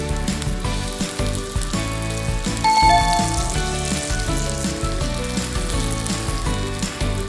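Egg-battered pork tenderloin slices sizzling as they pan-fry in hot oil, with chopsticks turning them. Background music with a steady beat plays underneath.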